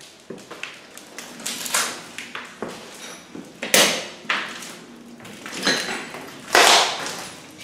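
Footsteps scuffing and crunching over a floor strewn with debris, with irregular knocks and scrapes. The loudest is a longer scrape about two-thirds of the way in.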